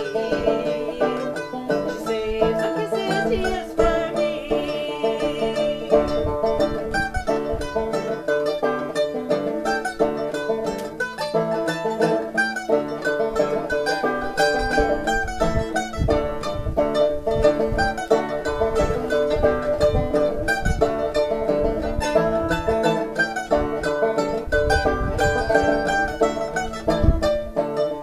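A banjo and a mandolin playing a folk tune together.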